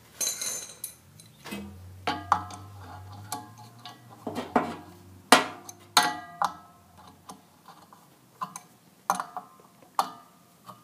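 Sharp metallic clicks and taps at irregular intervals, some ringing briefly, as a wrench is fitted to and worked on the set-screw nut of a steel blower wheel's hub on the motor shaft.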